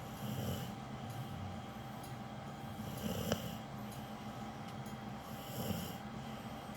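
A sleeping dog snoring, about one snore every two and a half seconds, three in all.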